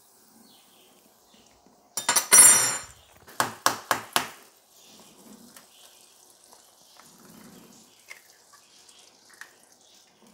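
Kitchenware clattering with a ringing metallic sound about two seconds in, followed by four quick sharp knocks. Then faint sizzling of butter melting in a hot nonstick skillet, with small scattered clicks.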